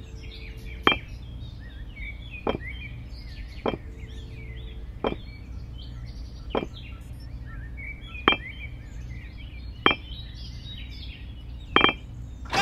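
Miniature clay bricks clinking against each other as they are set down one at a time, about eight sharp clicks with a short ring, one every second and a half or so, the last one doubled. Faint bird-like chirping runs underneath.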